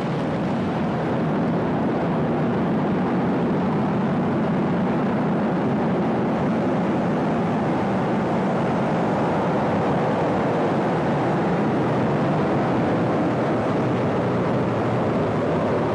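Falcon 9 rocket's first stage, its nine Merlin engines firing at full thrust during ascent: a steady, unbroken noise, loudest in the low and middle range.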